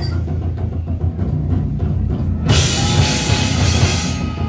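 Heavy metal band playing live, led by a drum kit with a heavy, steady bass drum; a wash of cymbals comes in a little past halfway and lasts over a second.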